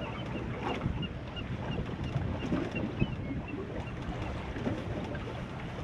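Wind rushing over the microphone and sea water washing against a small fishing boat, an uneven steady rush with faint short high chirps repeating through it.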